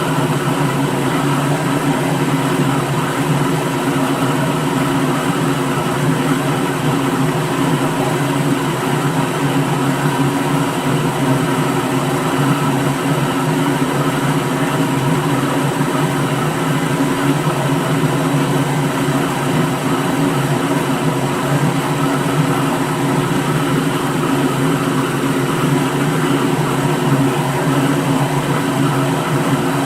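Electric blender running steadily at one speed: a constant motor whir that does not change.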